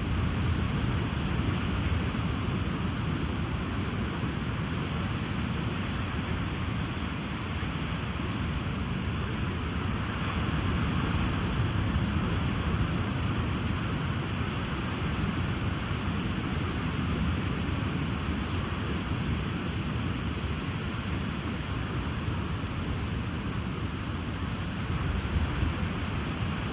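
Ocean surf and wind: a steady rushing wash with a deep low rumble, swelling only gently in level.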